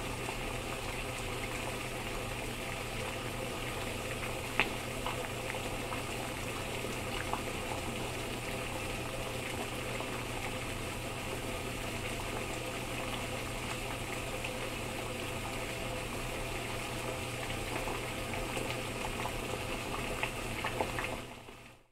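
Water boiling, a steady bubbling with scattered small pops, one sharper pop about four and a half seconds in, fading out near the end.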